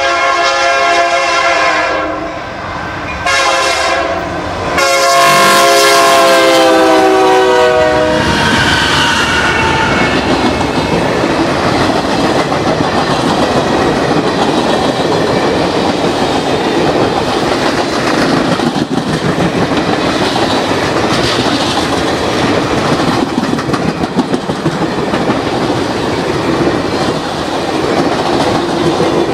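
A diesel locomotive's multi-chime air horn blows a long blast, a short one and another long one. The chord drops in pitch at the end of the last blast as the locomotive passes. Then a long passenger train rolls by with a steady clickety-clack of wheels over the rail joints.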